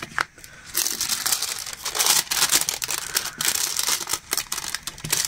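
Crinkling and rustling of a diamond painting canvas and its plastic film being handled, a dense run of small crackles starting about a second in.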